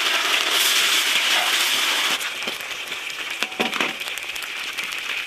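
Marinated chicken knee cartilage deep-frying in hot oil in an iron wok: a loud sizzle that eases about two seconds in to a softer bubbling crackle, with a few light clicks.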